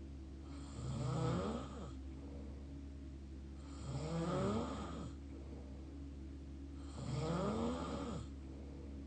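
Mouth snoring: three snores about three seconds apart, each lasting a little over a second, with a pitch that wavers up and down.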